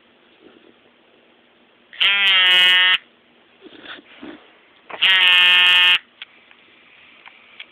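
A dog snoring: two loud snores, each about a second long and three seconds apart, steady in pitch. They are loud enough to distort on the phone's microphone.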